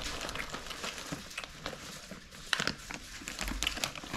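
Plastic snack bag of Mars Pods crinkling as it is handled and lowered, with chewing; the rustling is loudest about two and a half seconds in.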